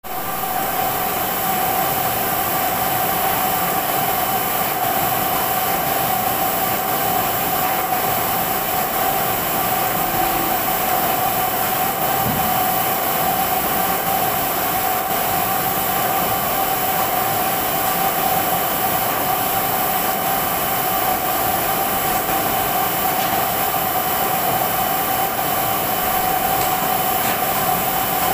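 Heidelberg GTO 52 two-colour offset printing press running: a steady mechanical whir with a constant whine over it.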